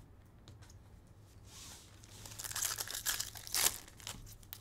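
Foil wrapper of a 2023 Topps Finest baseball card pack being torn open and crinkled by hand. The crackling builds about two seconds in and is loudest near the end.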